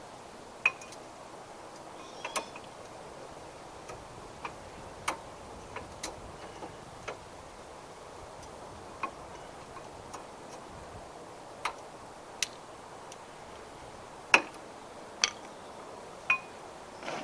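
Irregular sharp metallic clicks and clinks, about twenty of them at uneven intervals, of brake pads and their spring clips being handled and seated in a caliper bracket, with the loudest clink about 14 seconds in.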